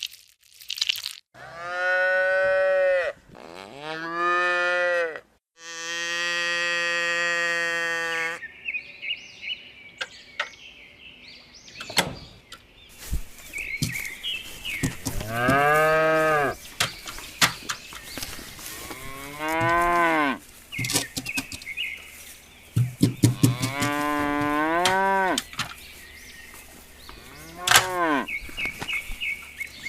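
Cows mooing, about seven long calls with gaps between them, several rising and then falling in pitch. From about a third of the way in, a steady high-pitched background with scattered clicks runs under the calls.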